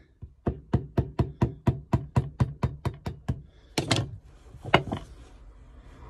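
A small hammer taps a wiring connector to drive it onto a terminal held in a vise. About a dozen light, even taps come at roughly four a second, then after a short pause come two or three harder blows.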